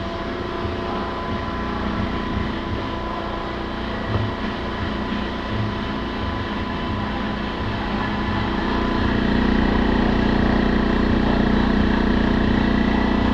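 A/C service machine's vacuum pump running steadily, evacuating a car's empty air-conditioning system to pull it into vacuum for a leak test. It gets louder about eight or nine seconds in and holds there.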